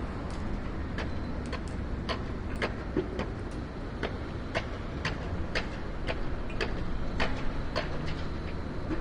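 Urban construction-site ambience: a steady low rumble of distant traffic and machinery, with sharp clicks or knocks about twice a second.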